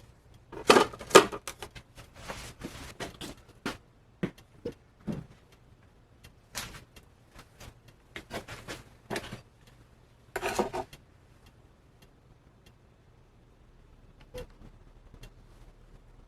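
Casting gear being handled: a string of short metallic clinks, knocks and scrapes for about eleven seconds, with louder scraping bursts near the start and again about ten seconds in, then near quiet with one faint click.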